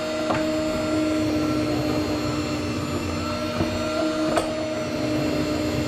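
Electric meat slicer running with a steady motor hum from its spinning blade, and a few light clicks.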